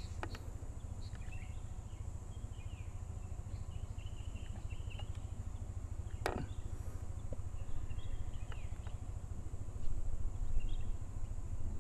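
Faint small-bird chirps over a steady low rumble, with one sharp crack of an air rifle shot right at the very end.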